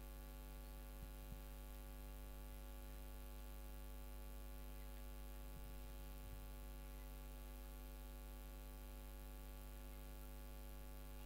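Steady electrical mains hum, a low buzz with a stack of overtones, with a few faint clicks about a second in and again around six seconds.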